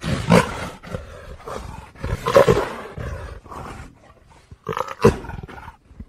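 Leopard roaring and growling: a run of separate calls with short breaks between them, loudest near the start, about two seconds in and about five seconds in, breaking off just before the end.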